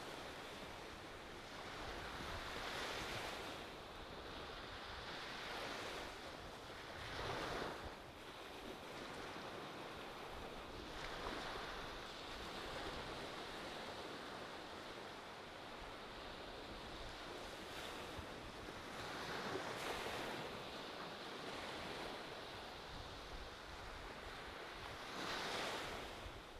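Calm ocean surf: small waves washing up on a sandy beach. The wash swells and fades every few seconds.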